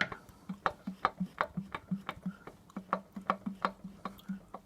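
Piston of a Jawa 640 California two-stroke twin clicking and knocking as it is rocked by hand with the cylinder head off, about five sharp metallic knocks a second. The free play comes from a worn-out lower (big-end) bearing in the left connecting rod.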